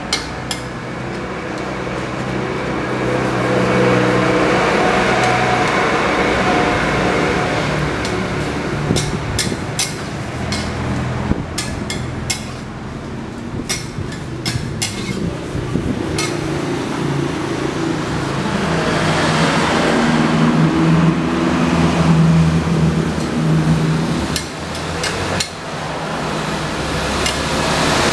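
Food sizzling and bubbling in a steaming wok over a charcoal brazier, with a metal spatula scraping and clanking against the wok in quick runs of clicks, over a low steady hum.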